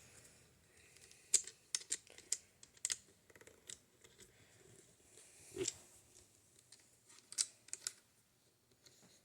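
Scattered light clicks and taps of objects being handled close to the microphone, with a duller knock about five and a half seconds in.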